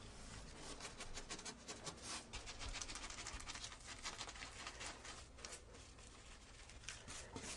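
Paintbrush bristles brushing paint onto a wall: a quick, irregular run of faint short strokes as the brush is dabbed and dragged along an edge while cutting in.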